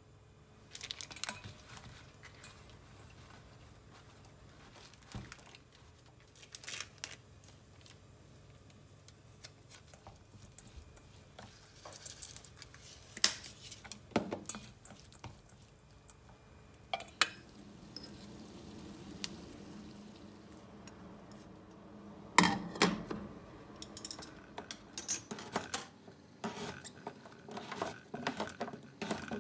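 Chopsticks tapping and scraping against a stainless steel bowl in scattered clinks as julienned carrot is tossed with seasoning and sesame. Near the end come rapid knocks of a kitchen knife cutting a white root vegetable on a plastic cutting board.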